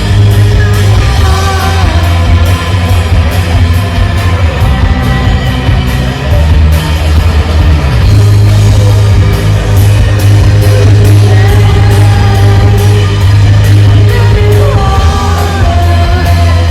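Loud rock music: a singer over heavy, held bass notes and a steady drum beat.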